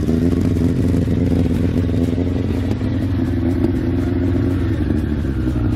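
Suzuki Bandit motorcycle engine idling steadily as it warms up.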